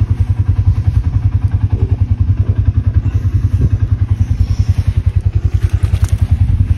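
A vehicle engine idling steadily, a low even throb of about twelve pulses a second, with a couple of faint clicks near the middle and towards the end.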